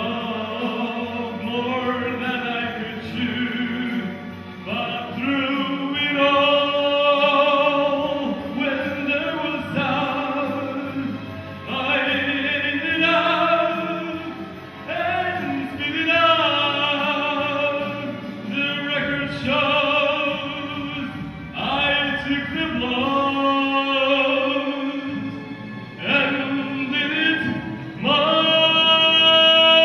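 A man sings into a handheld microphone over musical accompaniment, in a dramatic, operatic style with vibrato on long held notes. Near the end the singing gets louder on a long sustained note.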